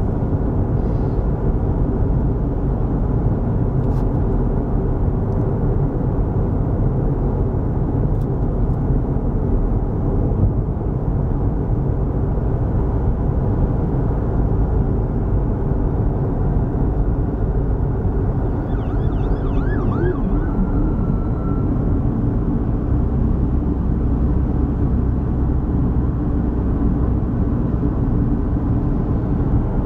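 Steady road and engine noise heard from inside a moving car's cabin, mostly a low rumble of tyres on the highway. About two-thirds of the way through, a faint wavering tone warbles for a couple of seconds.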